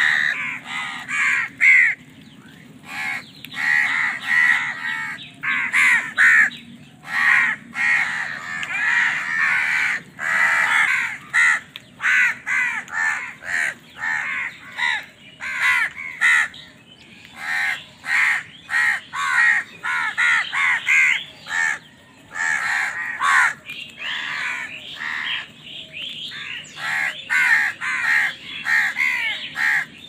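A flock of house crows cawing over food, many loud calls following one another and overlapping, with only brief pauses.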